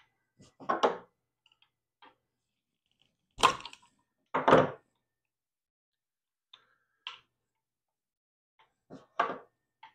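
Wrenches clinking and clattering against the CNC spindle's ER20 collet nut during a bit change, the spindle stopped. Four short bursts, the two loudest about three and a half and four and a half seconds in.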